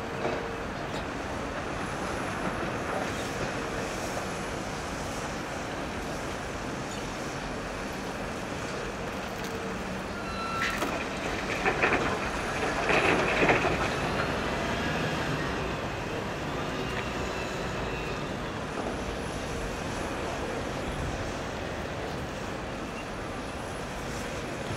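CAT 336F excavator's diesel engine and hydraulics running steadily as it works. About halfway through, a bucketful of crushed concrete debris pours into the steel tipper trailer of a Scania truck, a loud rough clatter lasting about two seconds.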